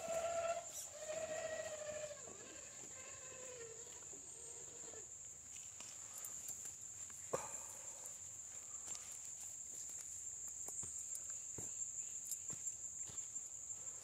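Traxxas TRX-4 RC crawler's electric motor and gears whining in wavering throttle pulses for the first few seconds, then dropping in pitch and stopping, followed by scattered clicks and knocks. A steady high insect drone runs underneath throughout.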